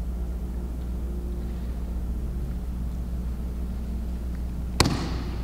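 Steady low hum in a church, with one sharp knock about five seconds in that rings on briefly in the room.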